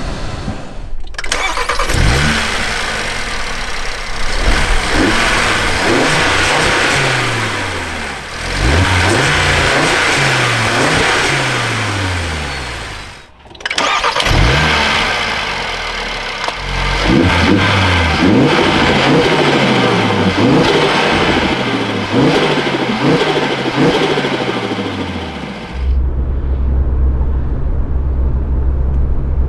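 Audi RS3's turbocharged 2.5-litre five-cylinder engine driven hard, its note sweeping up and down in pitch again and again with a strong whooshing intake and turbo hiss over it. Near the end it settles to a steady low drone.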